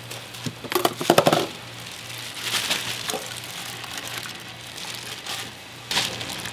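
Plastic bag of tteokbokki rice cakes crinkling as it is snipped open with scissors, loudest about a second in. The rice cakes then slide out of the bag into a pot of water with light splashing and more crinkling of the plastic.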